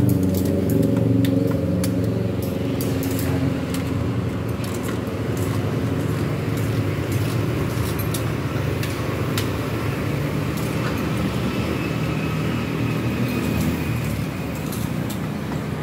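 Road traffic running close by, with a vehicle engine loudest over the first few seconds before it fades into a steady traffic rumble. Light clinks of metal tongs and a wire noodle strainer against a boiling pot sound throughout.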